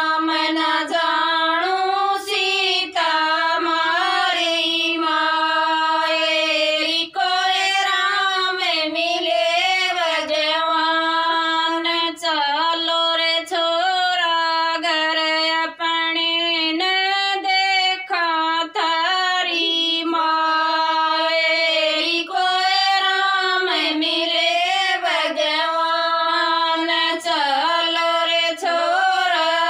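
Women singing a Haryanvi devotional folk song (bhajan) with no instruments. The melody is held in long notes with wavering, ornamented bends.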